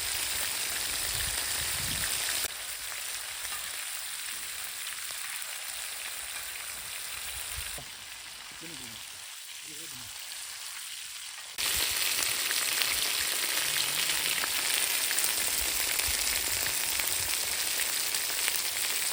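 Chicken leg pieces sizzling in oil on a tava, a steady frying hiss. It drops abruptly quieter about two and a half seconds in and again near eight seconds, then jumps back louder at about eleven and a half seconds.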